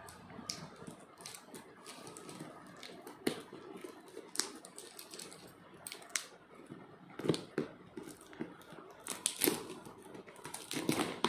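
Scissors snipping and brown packing tape crackling as a taped parcel is cut open and handled: irregular clicks and snaps, with a cluster of louder ones in the second half.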